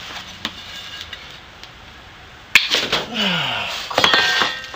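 An aluminium strip being bent by hand on a concrete floor: a few light clicks, then a sharp crack about halfway through, followed near the end by a string of clinks and briefly ringing metal knocks.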